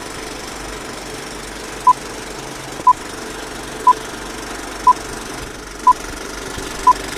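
Film countdown leader sound effect: a short beep once a second, six in all, starting about two seconds in, over a steady mechanical rattling run like an old film projector.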